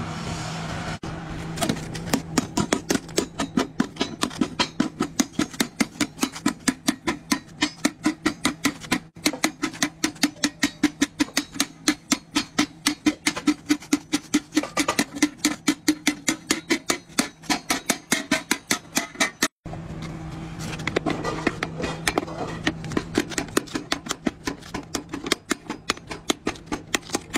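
A hammer beating an iron wok on a round steel anvil: fast, even blows about four a second, with a short break about two-thirds through before the hammering starts again.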